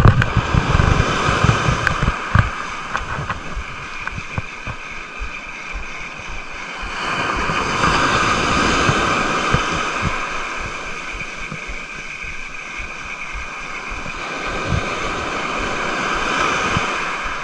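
Sea waves breaking and washing up the shore, swelling louder twice, with wind buffeting the microphone in the first couple of seconds.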